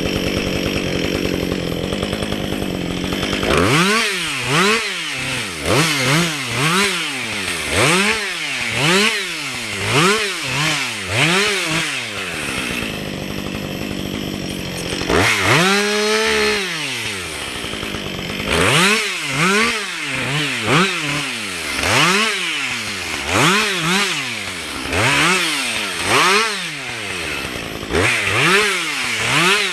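Two-stroke chainsaw running steadily at first, then revved up and down about once a second. Partway through there is a short steadier spell and one longer rev before the quick revving resumes.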